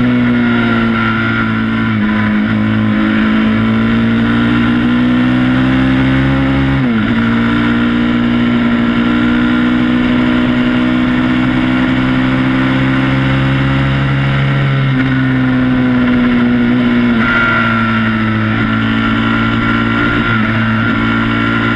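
Quad bike engine running close up at steady road speed. Its pitch dips sharply and comes back about seven seconds in, then steps down twice later on.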